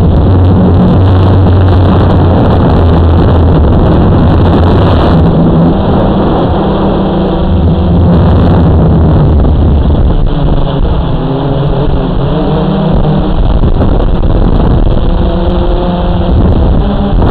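Drone's electric motors and propellers buzzing loudly, close to the onboard camera's microphone. The pitch wavers and shifts as the drone climbs and then drops back down.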